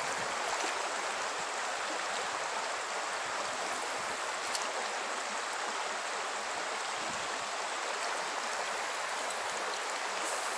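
Steady rush of flowing stream water, an even hiss with no let-up.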